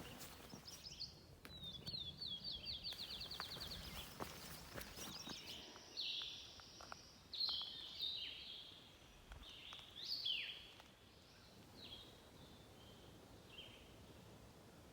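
Woodland songbirds singing: a fast trill of short high notes a couple of seconds in, then a series of high, downward-slurred whistled phrases with short pauses between them. A hiker's footsteps are faintly heard in the first few seconds.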